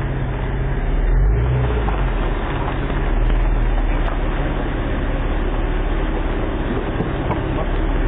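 Car engine running close by as the car manoeuvres in the driveway, swelling briefly about a second in and again around three seconds in, heard through a doorbell camera's microphone.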